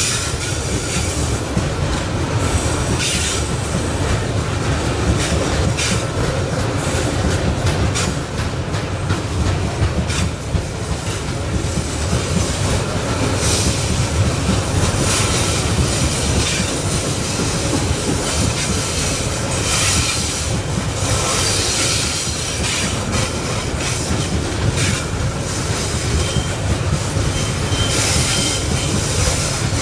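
Loaded coal hopper wagons of a long freight train rolling past on a curve: a continuous steel-wheel-on-rail rumble, with high-pitched wheel squeals coming and going every few seconds.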